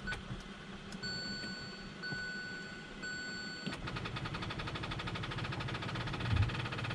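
A 2017 Hyundai Elantra beeps three times, each steady tone lasting just under a second, as the push-start button is pressed. Then comes a fast, even clicking that runs on to the end, the car failing to start on a dead battery.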